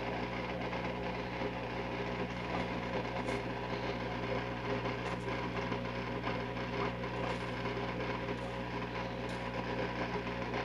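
A steady low mechanical hum at an even level, with no change in pitch or loudness.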